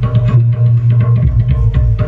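Loud music: quick drum and percussion strikes, several a second, over a steady deep bass tone.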